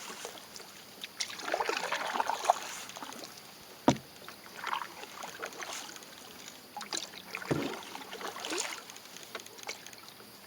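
Paddle strokes in calm water from a small dinghy: irregular swishes of the blade through the water every second or two. A sharp knock comes about four seconds in, and a duller one a few seconds later.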